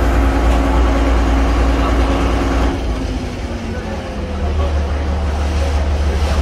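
Diesel engine of a Venetian vaporetto water bus running underway, a steady low drone heard from its open deck, with water noise over it. The engine note drops away about three seconds in and builds back up shortly after.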